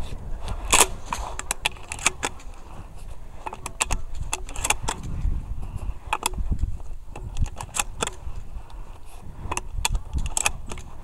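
Gunshots from a competitor firing on a 3-gun stage, heard at some distance: single sharp reports at irregular intervals of a second or two, the loudest about a second in. Smaller clicks and rattles come in between.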